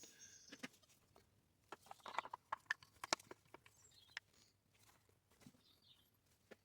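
Faint, scattered clicks and light knocks of chainsaw parts being handled and fitted during reassembly. They cluster in the middle, with a couple more near the end.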